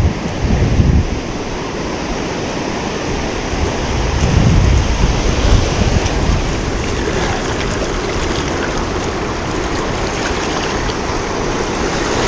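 Ocean surf washing on the beach, with wind buffeting the microphone in low gusts, strongest in the first second and again about four seconds in.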